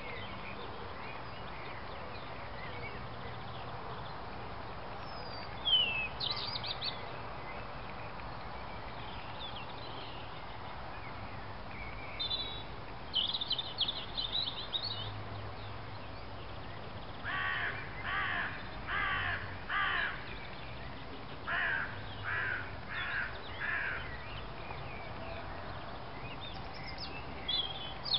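Two series of four harsh, evenly spaced calls, one after the other, with a few short high bird chirps earlier, over a steady outdoor hiss.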